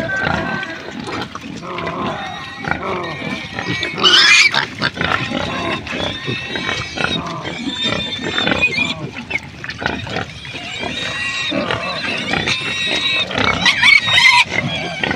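A crowd of farmed pigs squealing and calling over one another. Louder, shriller squeals come about four seconds in and again near the end.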